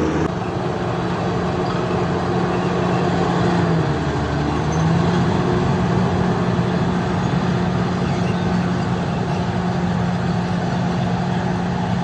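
Bulldozer's diesel engine running steadily while working, its pitch dipping briefly about four seconds in and then picking back up.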